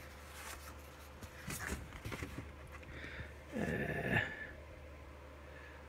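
Faint rustling and light taps of card-stock art cards being picked up and handled, with a short breathy vocal murmur, falling in pitch, about three and a half seconds in.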